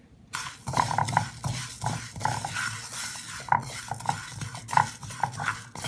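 Wooden spatula stirring and scraping whole coriander and cumin seeds around a dry pan, the seeds rattling against the pan as they are dry-roasted. The stirring starts a moment in and goes on in quick, uneven strokes.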